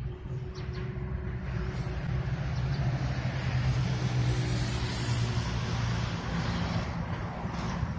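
Diesel locomotive engine running with a steady low hum as the locomotive approaches, growing louder around the middle.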